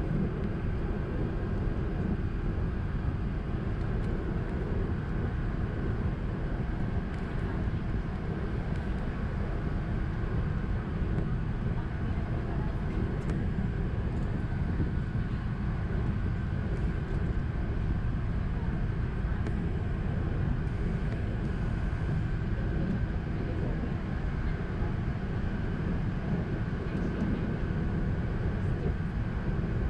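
Steady in-flight cabin noise of an Airbus A380, a low, even drone of engines and airflow heard inside the cabin, with a faint steady hum running through it.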